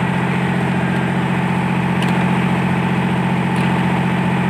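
Large diesel engine idling steadily, with an even, low running note and no change in speed.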